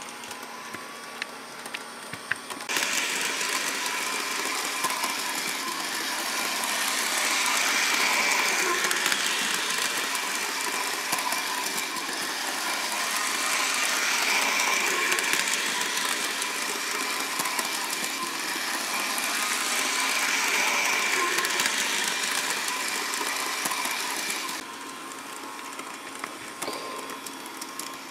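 Small HO-scale model train locomotive from a Bachmann Thoroughbred set running on its track: a steady whine and rough running from its motor and drivetrain, the sign of a cheap motor and drivetrain. The noise steps up about three seconds in, swells and fades every several seconds, and drops back near the end.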